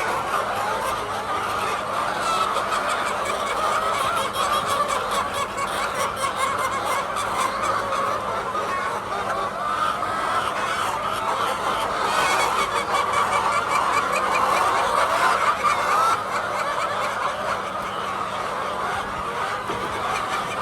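A flock of laying hens clucking and calling over one another in a steady, continuous din.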